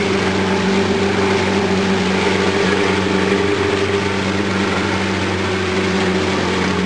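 Boat engine running at a steady pitch, under a constant hiss of wind, rain and water.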